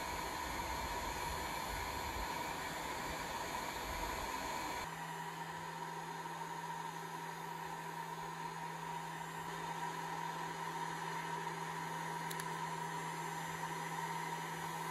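Heat gun with a slot nozzle blowing hot air steadily, with a constant whine, used to warm a fountain pen's section. About five seconds in, its sound changes: the low rumble drops away and a steady low hum comes in.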